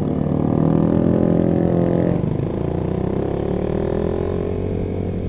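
Motorcycle engine accelerating: its pitch climbs for about two seconds, drops at a gear change, then climbs slowly again.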